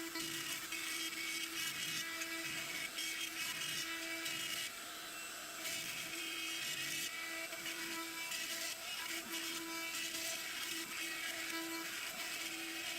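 CNC router spindle cutting through pine plate: a steady whine with a dense, rasping cutting hiss. The hiss thins for about a second around five seconds in.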